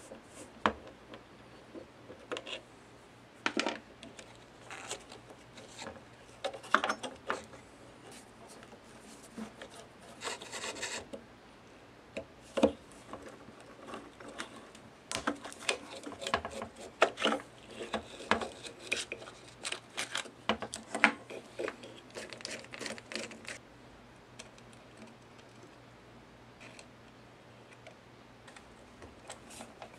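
Hand disassembly of an old Hitachi Koki electric polisher: a screwdriver and small screws clicking, scraping and knocking against the tool's metal housing and the wooden tabletop. Irregular taps and clicks, with a rasping scrape about ten seconds in and a busy run of clicks through the middle, thinning out near the end.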